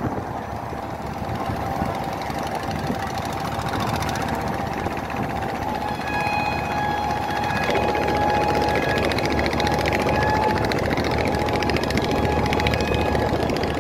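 Engine of a passenger river launch running steadily, with a thin whine joining in about six seconds in and the engine noise growing louder about eight seconds in.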